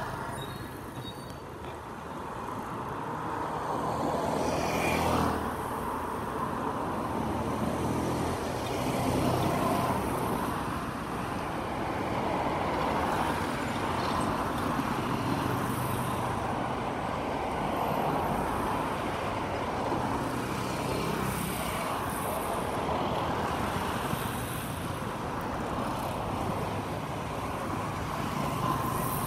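Roadside town traffic: cars, motorcycle taxis and trucks driving past on a paved road, a continuous mix of engine and tyre noise that swells and eases as vehicles pass close.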